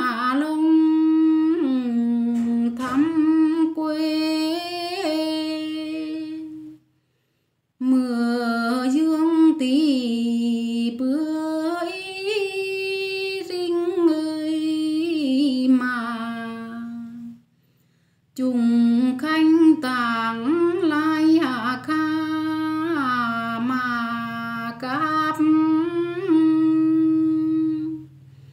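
A woman singing a Tày folk-style song in long, sliding, ornamented phrases. The voice cuts to dead silence twice, briefly, about seven and seventeen seconds in.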